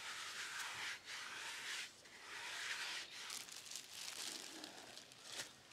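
Thin plastic bag crinkling and rustling as it is handled over a bucket of pickling rice bran, in several bursts with short pauses about one and two seconds in.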